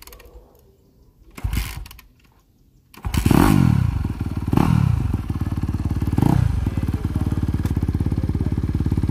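Four-stroke dirt bike engine started after two short attempts, catching about three seconds in. It is revved three times, falling back each time, then settles into a steady, high idle.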